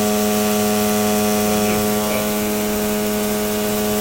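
Daikin VRV III inverter compressor humming steadily on one fixed low tone with overtones. The compressor is faulty and has no compression: it hums without pumping, so the discharge pipe stays cold.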